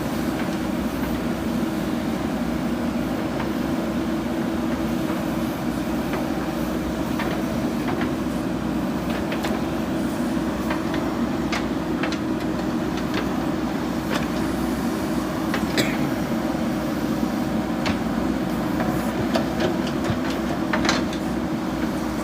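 JCB 3DX backhoe loader's diesel engine running steadily under work, with scattered sharp clanks and knocks, more frequent in the second half.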